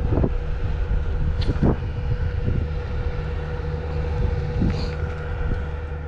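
Wind rumbling on the microphone over a steady motor hum, with two short clicks, one about a second and a half in and one near the five-second mark.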